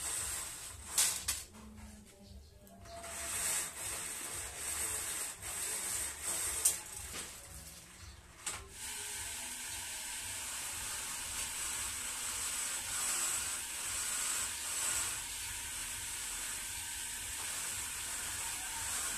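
Bead chain of a zebra roller blind being pulled through its clutch mechanism, raising and lowering the blind. It makes a light rattle, with scattered clicks in the first half and a steady run of chain noise after about nine seconds.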